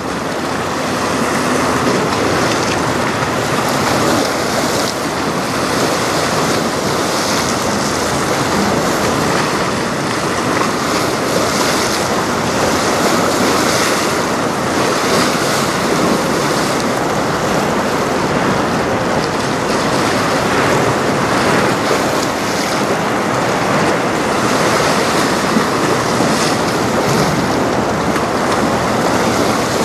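Steady wind noise on the microphone over choppy water splashing and lapping.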